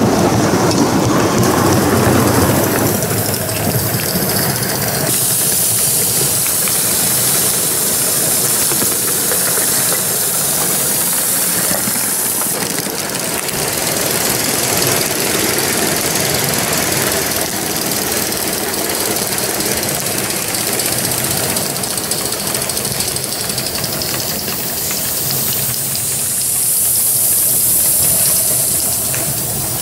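Live-steam Gauge 1 BR 86 tank locomotives running double-headed with a freight train: steam hissing over the running noise of the locomotives and the wagons' wheels on the track. The hiss swells and fades at times.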